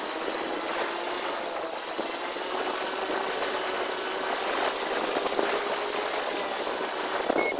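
Motorbike engine running under way, its pitch climbing slowly, over steady road and wind noise. A short, loud beep sounds near the end.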